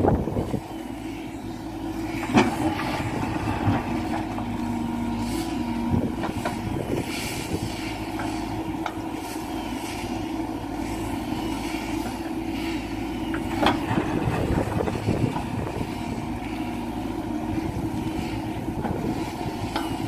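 Caterpillar 416F2 backhoe loader's diesel engine running steadily under load while the backhoe digs. Sharp knocks from the bucket and arm working the stony soil come every few seconds, the loudest about two seconds in.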